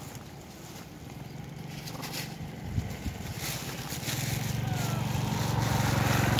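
An engine running at a steady low pitch, growing louder about two-thirds of the way through. Two sharp clicks come near the middle.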